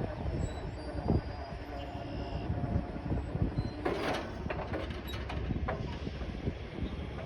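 Autorack freight cars rolling past: a steady low rumble of wheels on rail with irregular clacks, and a louder burst of rattle about four seconds in.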